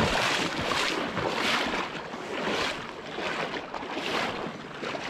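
Waders pushing through a shallow, fast river current: repeated swishing surges of water, roughly once a second, over the steady rush of the stream.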